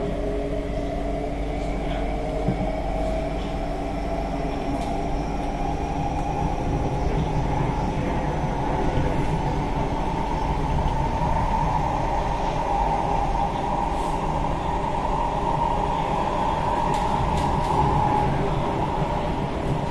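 Interior sound of a C151B MRT electric train accelerating, its traction motor whine rising in pitch over the first ten seconds and then holding steady over the running rumble of the wheels on the track.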